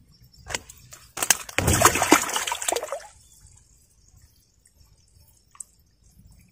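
Water splashing and sloshing: a short splash about half a second in, then a louder stretch of sloshing from about one to three seconds, dying down to faint drips.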